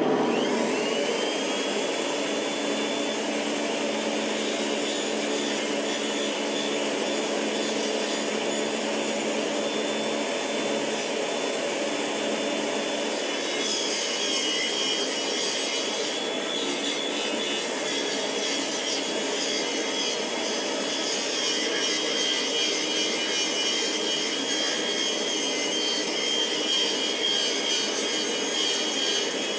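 Stationary circular saw starting up, its whine rising to a steady pitch within the first second or two, then running steadily as a wooden workpiece is fed against the blade to cut a round tenon. A harsher, higher hiss of cutting joins about halfway through.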